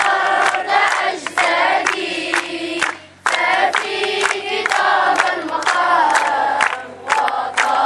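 A group of children and teenagers singing a chant together, clapping their hands in rhythm. The singing breaks off briefly about three seconds in, then starts again.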